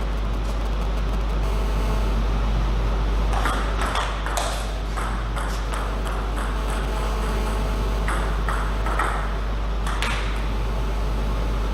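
Table tennis ball clicking off bats and table in irregular runs of sharp knocks, over a steady low hum.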